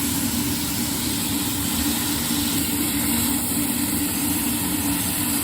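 Propane torch firing a homemade plaster-and-sand blast furnace, running with a steady, unbroken rushing noise of burning gas.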